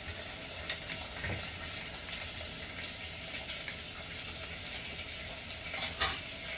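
Sofrito frying in oil in a cooking pot: a steady sizzling hiss, with a few light clicks just under a second in and one sharp click about six seconds in.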